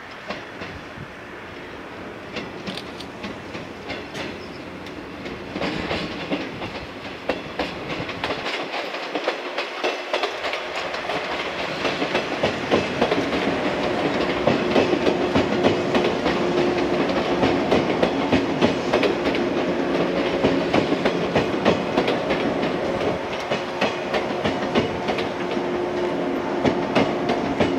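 Yellow JR West 115 series electric train, two coupled sets, approaching and passing, growing louder, with a rapid clickety-clack of wheels over rail joints. A steady hum joins about halfway through.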